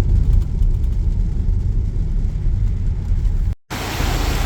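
Steady low road and tyre rumble heard inside a moving Tesla's cabin, with no engine note. The rumble cuts out near the end and, after a split second of silence, gives way to an even hiss.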